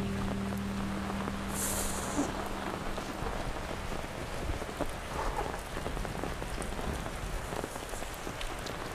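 Steady rain falling on wet ground, an even hiss.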